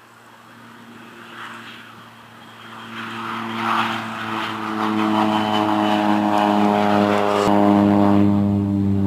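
A crop-dusting biplane's engine and propeller at full power as it flies in low and climbs close overhead. The steady engine note grows from faint to loud over the first few seconds and stays loudest through the last few seconds.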